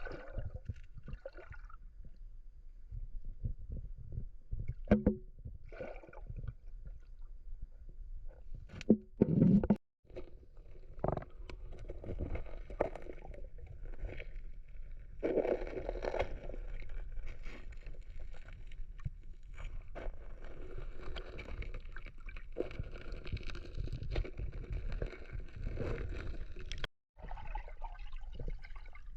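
Water sloshing and splashing over a steady low rumble, with scattered knocks and handling noises. The sound drops out briefly twice.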